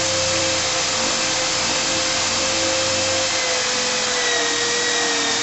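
Electric drill with a hook-and-loop sanding pad running steadily, its disc sanding the inside of a manzanita bowl: a constant motor whine over the hiss of abrasive on wood.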